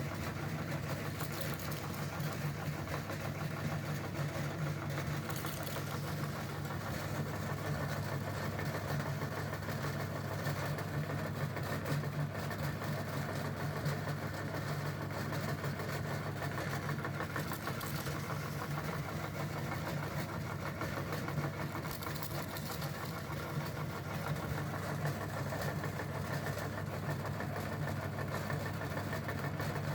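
Meat grinder running steadily with a constant motor hum while grinding Kolson Slanty snack sticks.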